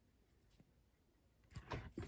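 Near-silent room tone, then about one and a half seconds in a sudden clatter of small hard objects clinking and knocking together.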